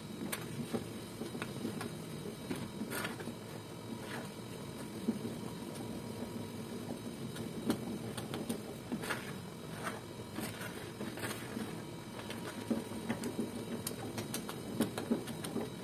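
Wooden spatula stirring a thick milk and cornstarch cream in a pot, with soft scrapes and light irregular knocks against the pan over a steady low noise.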